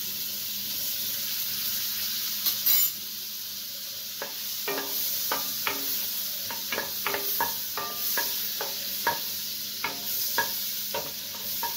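Butter melting and sizzling in a nonstick kadai over a gas flame, with a steady hiss. From about four seconds in, a wooden spatula stirs it round the pan in a run of short scraping strokes.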